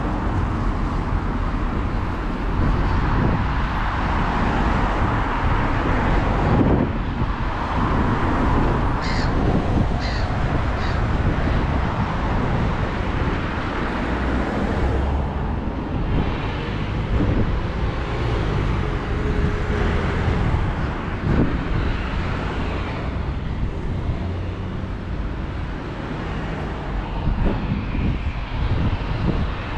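Wind buffeting the microphone with a steady low rumble, over road traffic, and a few short harsh bird calls about nine to eleven seconds in.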